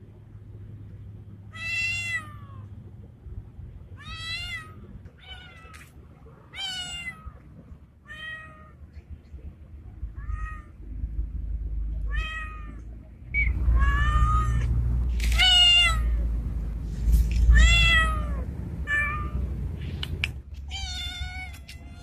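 Male street cat meowing over and over, drawn-out calls one every second or two, which the uploader presents as a tomcat's mating call to a female. A low rumble runs under the calls through the second half.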